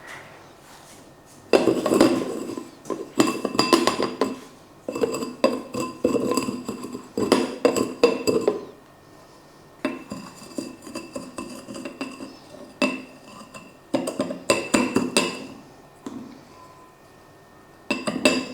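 A drinking glass clinking and scraping against a dish in several spells with short pauses, its rim being rubbed with lime and twisted in Himalayan salt to give it a salted rim. The glass rings faintly after the knocks.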